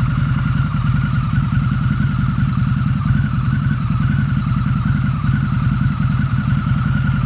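2014 Harley-Davidson Night Rod Special's V-twin idling steadily through Vance & Hines aftermarket exhausts, a loud, even, deep pulsing with no revs.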